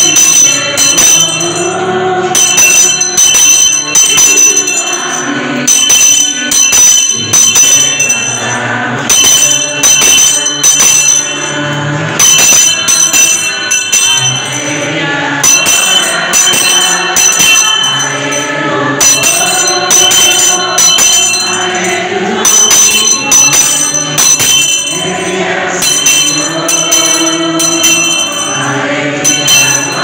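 A congregation singing a Catholic hymn to the Blessed Sacrament, while a small handbell is rung in short bursts every three seconds or so.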